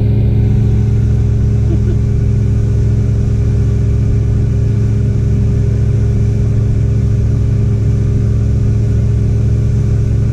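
The 1984 Grady White Overnighter's engine running steadily with the boat under way: an even, unchanging drone of several steady tones, with a hiss of wind and water rush over it.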